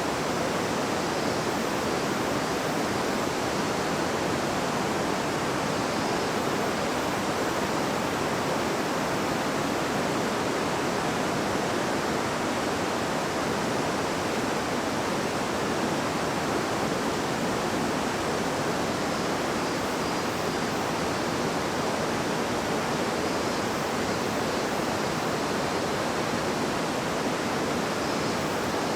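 River water flowing and babbling over stones, a steady rushing hiss that keeps an even level throughout.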